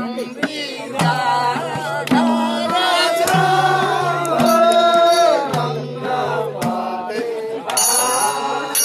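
Maruni dance music: a madal drum beats a steady pattern of low and higher strokes under a sung melody. Bright metallic ringing joins in near the end.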